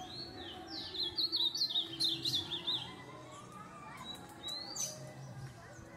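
Ultramarine grosbeak (azulão), a young bird of about a year and four months, singing: quick runs of short, sharply falling chirps in the first half, then a single rising whistle about four seconds in, after which it goes quieter.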